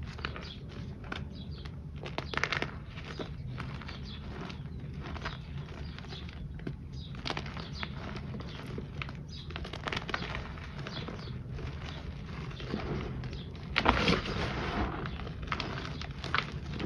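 Handmade reformed-powder shapes and chunks crushed and crumbled between bare hands into loose powder: irregular soft crunches and crackles, the loudest crunch about 14 seconds in. The shapes are from a different batch of powder and are a little crunchy. A steady low hum runs underneath.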